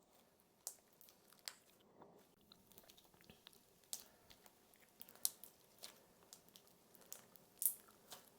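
Cereal slime being slowly pulled and worked, the cereal bits in it giving faint, scattered crunches and crackles with a few sharper pops.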